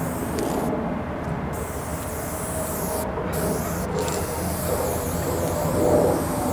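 Aerosol spray-paint can hissing as a line is sprayed, the hiss stopping briefly about a second in and twice more around three to four seconds in. Under it runs a steady low rumble that grows louder near the end.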